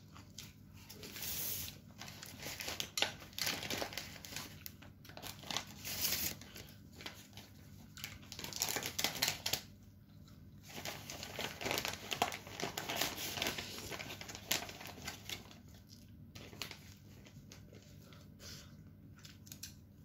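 A person eating instant noodle soup: slurping broth and noodles and chewing, in repeated short noisy bursts.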